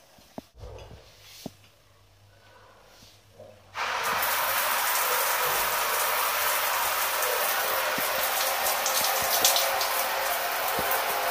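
Shower water turned on about four seconds in and running steadily onto a tiled shower floor. Before it comes on, only a few faint clicks and knocks.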